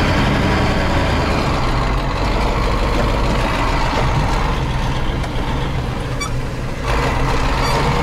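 KamAZ 6x6 truck's V8 diesel engine running under load, heard from inside the cab as the truck drives on a muddy dirt track. It runs steadily, easing a little and then growing louder again about seven seconds in.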